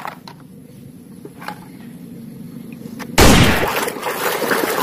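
A few faint knocks of plastic toys being handled, then about three seconds in a sudden loud splash and churning of water as a hand plunges a toy into a tub of muddy water.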